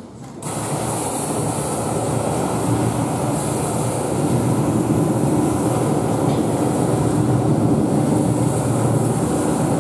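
Sea-wave sound effect: a steady rushing noise of surf that cuts in abruptly about half a second in.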